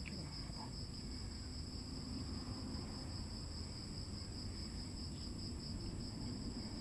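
Crickets singing in a steady, unbroken high trill, over a low background rumble.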